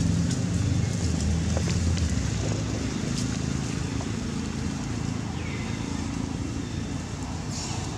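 A low, steady motor hum that slowly fades, with a few faint clicks. Two short falling chirps come in the second half.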